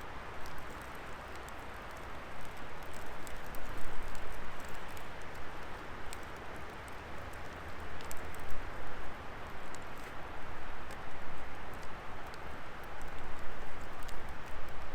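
Wood fire burning: a steady hiss of flames with scattered sharp crackles and pops.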